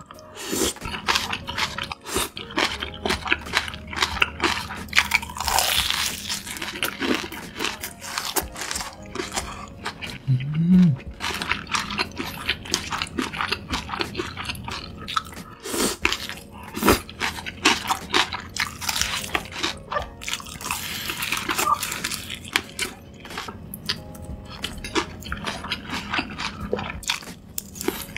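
Close-miked crunching and chewing as crispy battered fried chicken is bitten into and eaten, with many irregular crackles of the crust.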